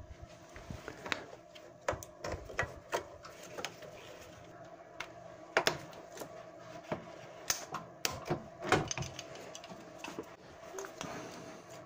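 Irregular clicks, clacks and knocks of hands and pliers working the plastic clips, hose fittings and frame of a car radiator pack while it is freed from the front of the car. The loudest knocks come about halfway through and again a little later. A faint steady hum runs underneath.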